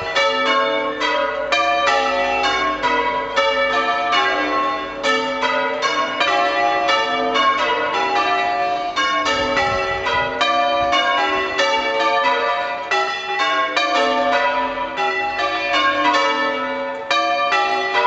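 Change ringing on a light ring of five church bells, tenor about 7 cwt, struck one after another in a steady run of about three strokes a second. The bells are old ones that the ringers call on their last legs.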